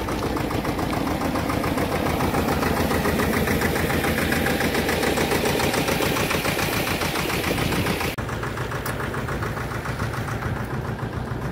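Engine of a road-building bitumen tanker-sprayer running steadily with a fast, even beat. About eight seconds in the sound drops abruptly and the engine goes on more quietly.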